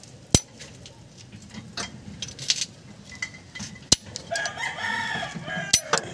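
Sharp metallic clicks from pliers working the steel parking-brake lever and retaining clip on a drum brake shoe, three in all. About four seconds in, a rooster crows in the background for about a second and a half.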